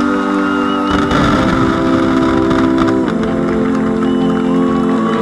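Music with sustained held chords that change about three seconds in.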